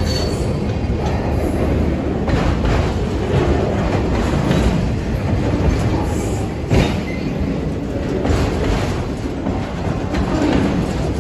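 Freight train of autorack cars rolling past at close range: a steady rumble of steel wheels on rail, broken by clicks of the wheels, with the sharpest bang about seven seconds in.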